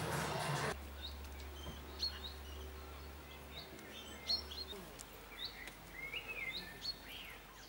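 Small birds chirping outdoors: many short, high chirps scattered through, the loudest just past the middle. Under a second in, a brief stretch of indoor background noise cuts off abruptly.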